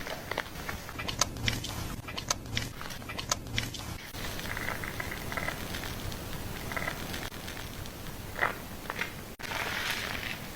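Hair being washed: fingers scrubbing through lathered hair and scalp, the foam crackling and squishing in quick irregular clicks, with a short burst of hiss near the end.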